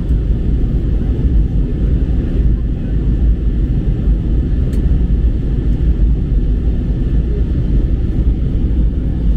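Steady, loud low rumble of a vehicle in motion, unbroken throughout.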